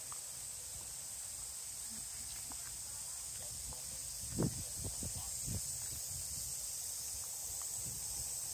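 Steady high-pitched hiss of outdoor ambience, with a few soft low thumps about four to five and a half seconds in.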